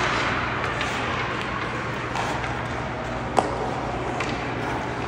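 Ice hockey game sounds in a rink: steady noise with scattered sharp clicks of sticks and puck. The loudest is a single crack about three and a half seconds in.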